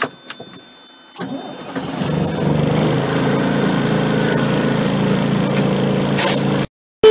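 A few clicks, then about a second in the Renault fire truck's diesel engine turns over and starts, settling into a steady idle. The sound cuts off suddenly near the end.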